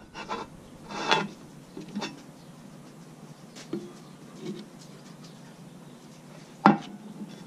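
Short scrapes and rubs of a wooden block handled against the sandpaper of a stopped disc sander and its table, with a sharp thump near the end. The sander's motor is not running.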